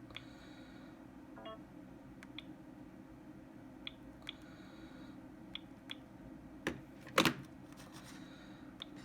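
Faint key clicks of a Sony Ericsson W902 mobile phone as its menus are navigated, coming every second or so with a short high tick, and a louder knock about seven seconds in, over a low steady hum.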